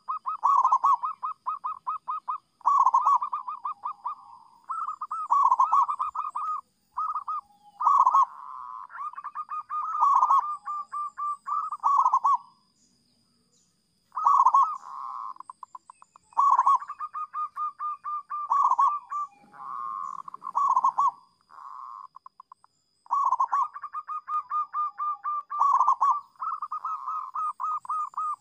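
Zebra dove (perkutut) cooing: phrases of fast, rattling coos, each lasting a second or two, repeated with short pauses and one longer pause about halfway through.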